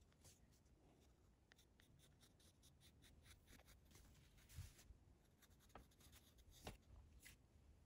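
Faint pencil scratching on paper in short, quick strokes as lines are drawn, with a soft bump about halfway through and a sharper tap near the end.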